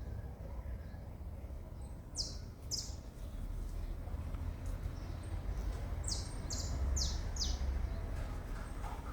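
Small bird calling: short high chirps that sweep downward in pitch, a pair a couple of seconds in and a quick run of four about six seconds in, over a steady low rumble.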